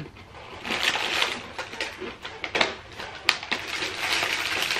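Clear plastic cookie wrapper and paper bag crinkling and rustling as a sleeve of crisp cookies is handled and slid back into the bag, with small clicks throughout and the loudest rustle near the end.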